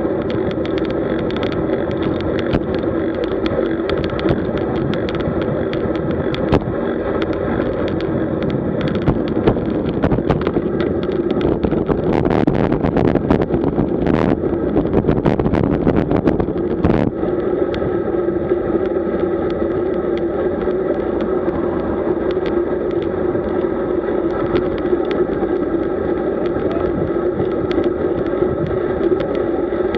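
Road bike rolling at about 40 km/h: a steady hum of tyres on asphalt mixed with rushing wind. It gets louder and rougher for a few seconds around the middle, with some clattering.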